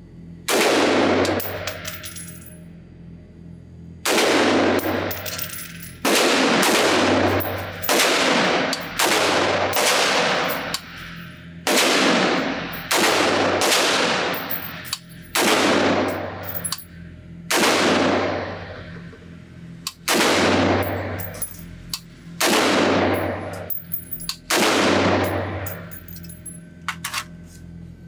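Sig Sauer M400 AR-15 pistol in 5.56 firing a slow string of aimed single shots, about one every one to two seconds, each crack ringing on in the echo of an indoor range. A few light clicks near the end.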